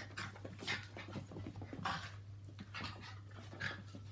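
A Maltese and a Yorkshire terrier play-fighting, giving short, breathy dog sounds about four times at irregular intervals, over a steady low hum.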